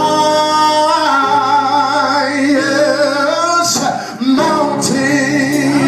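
Mixed male and female voices singing a slow gospel worship melody with vibrato over sustained keyboard or organ chords, pausing briefly about four seconds in.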